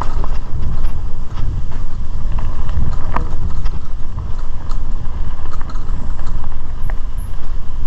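Mountain bike ridden over a dirt trail: a steady low rumble of wind on the microphone and tyres on the ground, with irregular clicks and rattles from the bike over bumps.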